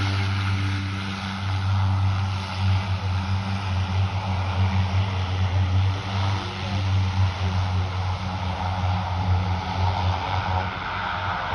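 North American OV-10 Bronco's twin turboprop engines running, a steady low propeller drone over a broad rushing hiss; the drone drops away near the end.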